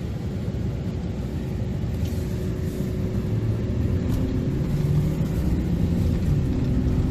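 Car driving, heard from inside the cabin: a steady low rumble of engine and tyres that slowly grows a little louder.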